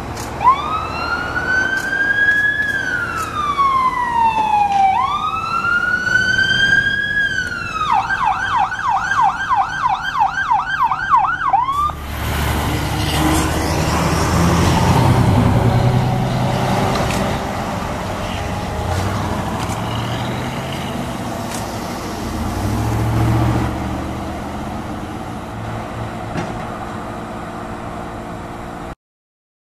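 Fire engine siren, from a 2004 American LaFrance Eagle pumper, sounding two long wails that rise and fall, then switching to a fast yelp for a few seconds. It cuts off suddenly to vehicle engine and road noise that swells twice as vehicles pass close by.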